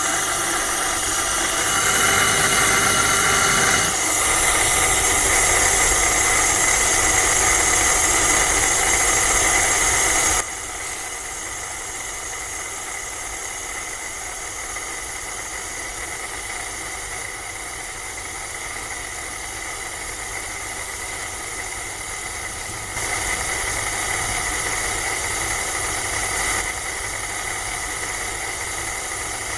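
A small motor running steadily, a constant whine over a hiss. The sound drops abruptly about ten seconds in and comes back louder about 23 seconds in.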